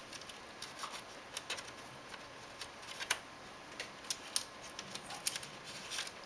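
Irregular light clicks and taps of a laptop's plastic palmrest and case parts being handled and fitted, with a few sharper clicks from about the middle on.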